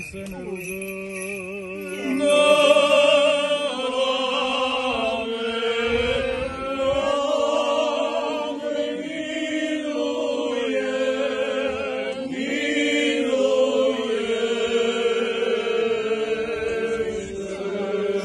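Orthodox funeral chant: clergy singing a slow liturgical hymn in long, held notes over a steady low note.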